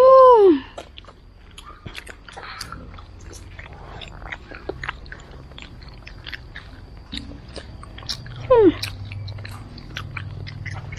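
Close-up biting and chewing of a sesame-coated fried glutinous-rice donut with bean filling, many small wet mouth clicks, and crunchy bits in the dough. A short voice-like sliding sound comes right at the start, and a falling one about eight and a half seconds in.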